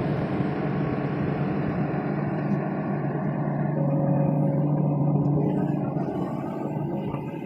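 Diesel engine of a hydraulic excavator running steadily, a low hum heard from inside the cab, swelling slightly about four seconds in.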